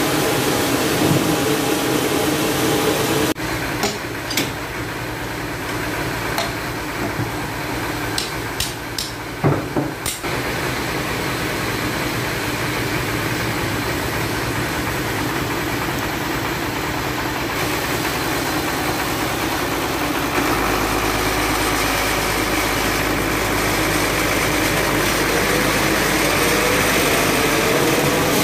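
Band sawmill machinery running steadily, with a few sharp knocks as the heavy log is handled on the carriage. A deeper hum joins about two-thirds of the way through.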